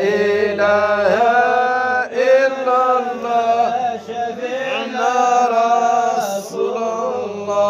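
A voice chanting an Islamic madha (religious praise song) in long, drawn-out melismatic phrases over a steady low drone.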